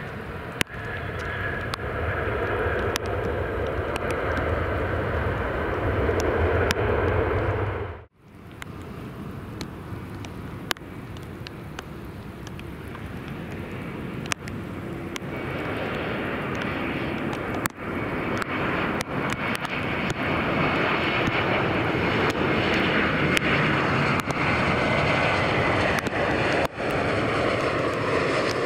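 Jet airliner engine noise, loud with a deep rumble, cutting off abruptly about eight seconds in. A second jet airliner's engines then come up and grow steadily louder through the rest.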